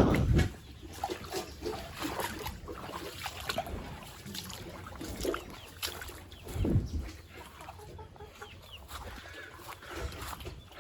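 Farmyard animals calling in short, scattered clucks and calls, with a louder low call about seven seconds in.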